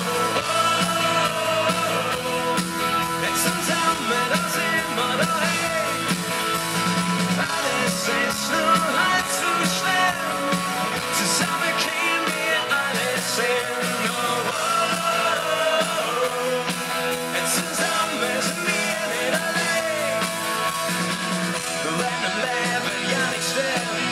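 Rock band playing live through a PA: electric guitars, drums and singing.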